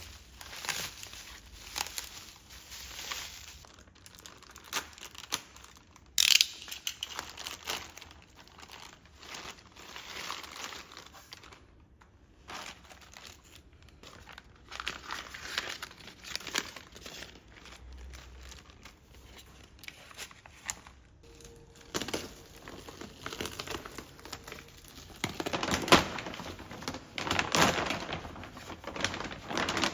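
Irregular scraping and rasping of hand work, coming in uneven strokes, with sharper loud bursts about six seconds in and again near the end.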